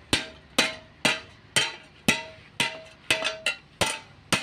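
Blacksmith's hand hammer striking a hoe blade on a steel anvil about twice a second, each blow a sharp metallic clank with a brief ring. The blows are forging a recycled saw blade onto the hoe.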